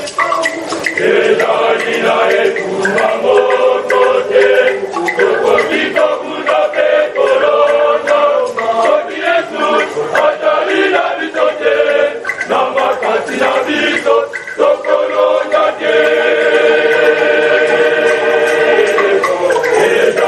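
Male choir singing together, holding long notes in several voices.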